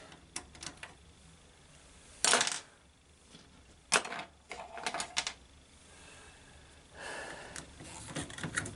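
Scattered sharp clicks and clatters of a plastic washing-machine door latch being handled and worked out of the front panel, the loudest about two seconds in and another about four seconds in, then a rustling scrape near the end.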